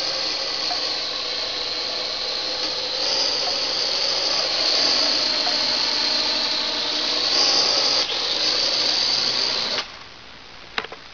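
A drone's electric motors and propellers whirring loudly in flight, the pitch rising and falling as the motor speed changes. The whir cuts off suddenly about ten seconds in as the drone lands and its motors stop, followed by a couple of sharp clicks.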